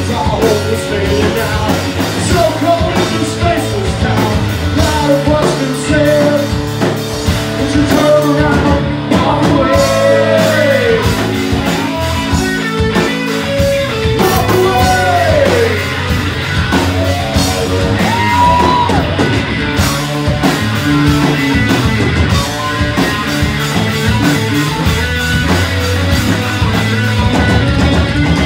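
Live rock band playing a song: electric guitar, bass guitar and drum kit, with a voice singing over them.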